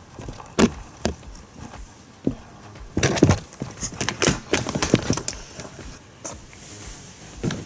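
Irregular knocks, bumps and scuffs of a cardboard box and balloons being jostled as a child crawls out through the box's cut-out door, the busiest and loudest stretch around the middle.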